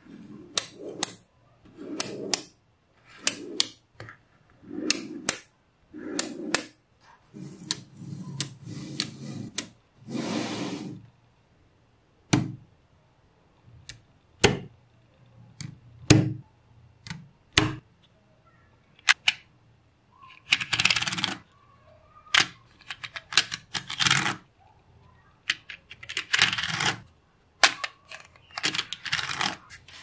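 Small magnetic balls clicking sharply as they snap together, between short bursts of scraping as they are pushed and slid into place. A run of single, separate clicks comes in the middle, and the clicking and scraping grow denser near the end.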